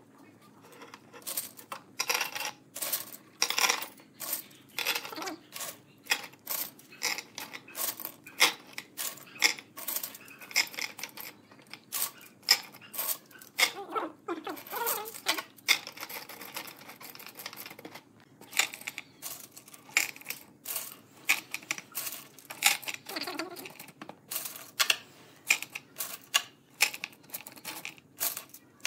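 Bamboo chopsticks clattering as handfuls are dropped and packed upright into a clear plastic cylinder: a quick, irregular run of light wooden clicks and knocks, with sticks rattling against each other and the tube wall.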